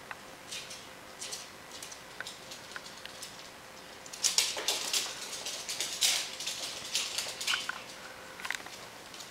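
Claws of a ferret and a Pomeranian skittering on a wooden floor in short scratchy bursts, sparse at first and busiest from about four seconds in.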